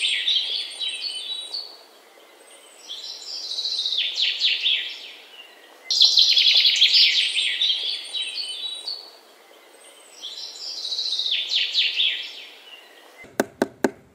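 Songbirds chirping and trilling in loud bursts that come back in the same pattern about every seven and a half seconds, as from a looped birdsong track, followed by a quick run of sharp clicks near the end.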